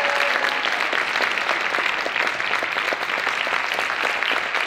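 Theatre audience applauding, many hands clapping at a steady level.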